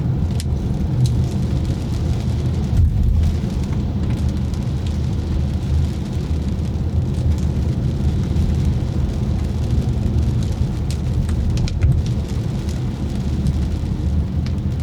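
Car driving in rain: a steady low rumble of engine and road noise, with scattered ticks of raindrops striking the car.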